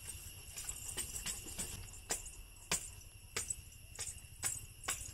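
Small metal jingling: about a dozen short jingles at uneven intervals, over a faint steady high-pitched whine.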